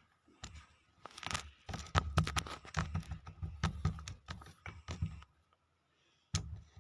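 Kinetic sand being squished, giving a run of soft crackling crunches that stops about five seconds in, with a couple more near the end.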